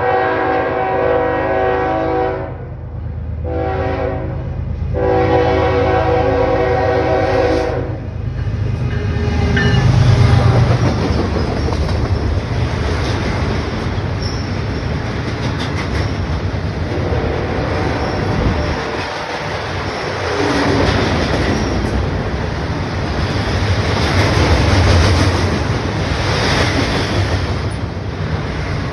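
Locomotive multi-chime air horn sounding three blasts, long, short, long, over the first eight seconds. Then the loud, steady rumble and rattle of the train's cars rushing past at speed, wheels clattering over the rail joints.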